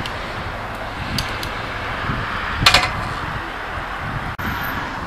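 Outdoor ambience with wind buffeting the microphone over a steady hiss. There are a few faint clicks, and a short sharp clatter comes about two and a half seconds in.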